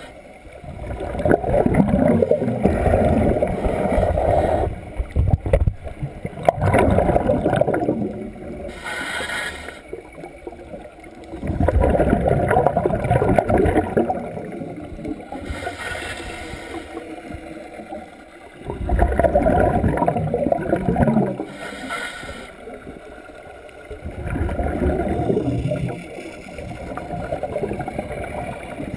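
Scuba diver breathing through a regulator, heard underwater: a short hissing inhale through the demand valve, then a long bubbling exhale, repeating about every six seconds.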